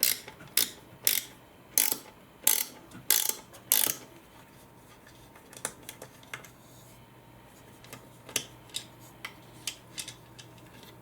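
Small ratcheting screwdriver clicking as it backs out Torx T8 screws in a Dyson V10 vacuum's handle. There are seven sharp clicks about half a second apart over the first four seconds, then fainter, scattered clicks.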